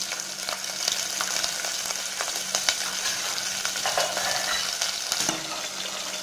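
Whole small onions (shallots) sizzling in hot oil in an aluminium pot: a steady frying hiss with scattered crackles and pops.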